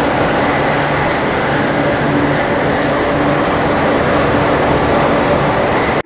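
Dense electronic drone noise from a chain of effects pedals and drone synthesizers: a thick, steady wash of noise with faint low hum tones coming and going underneath. It cuts off suddenly at the end.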